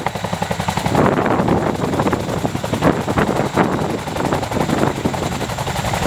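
Boeing CH-47 Chinook hovering low, its tandem rotors beating out a rapid, continuous blade chop over the steady rush of its twin turboshaft engines.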